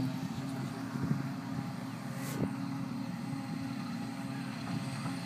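John Deere 6810 self-propelled forage harvester and its tractor running steadily at a distance while picking up grass silage: a steady low engine drone. There is a single short click about two and a half seconds in.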